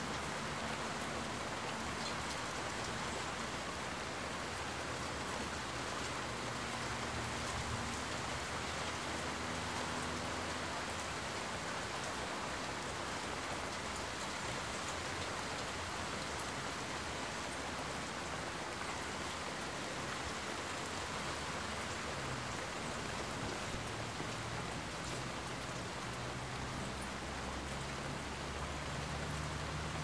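Steady rain falling and pattering on surfaces, an even hiss. A low hum comes in about a quarter of the way through, fades, and returns in the last third.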